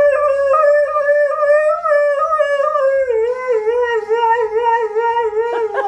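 Husky howling: one long howl that holds steady, then drops lower and wavers up and down in its second half, breaking off near the end with a few short yips.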